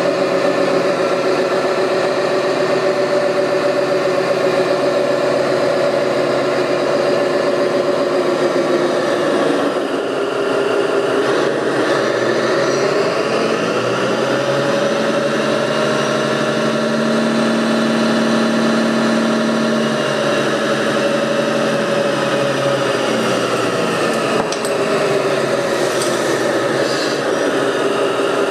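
Whine of a radio-controlled model's electric motor running under varying speed. The pitch drops about ten seconds in, rises again a few seconds later, and drops once more near the end.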